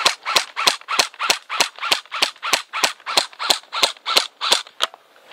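ASG Scorpion EVO airsoft electric gun firing in semi-auto, a steady string of about sixteen shots at roughly three a second, stopping near the end.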